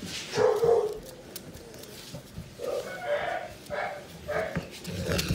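A young puppy's high-pitched cries: one longer call about half a second in, then a run of short calls in the second half.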